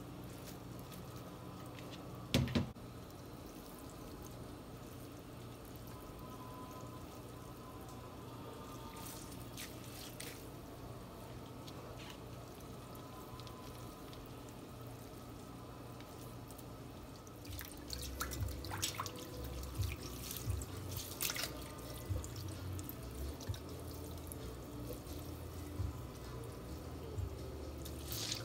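Water dripping and trickling from cooked rice vermicelli as it is pressed by hand in a plastic colander over a sink, squeezing out the rinse water. There is a single sharp knock a couple of seconds in, and louder, irregular handling bumps and drips over the last third.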